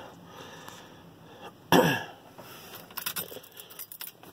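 A person clears their throat once, then near the end a quick run of clicks and jingles as the ignition keys are handled in the steering column of a 1978 Chevy C10 before a cold start; the engine is not yet running.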